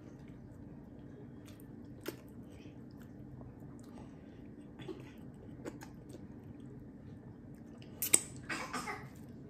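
A person chewing a mouthful of food, with a few soft, wet mouth clicks and a louder burst of sharp smacks near the end. A steady low hum runs underneath.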